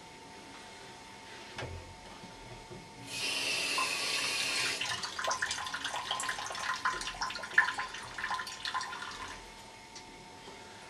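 Kitchen tap running into a sink. It is turned on about three seconds in with a brief full gush, then runs lighter with splashing and dripping, and stops about nine seconds in.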